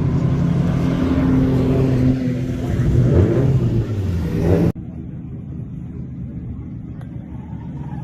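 VE Commodore drift car's engine running and being revved, its pitch rising and falling, until the sound cuts off suddenly about five seconds in to a quieter, steady engine running.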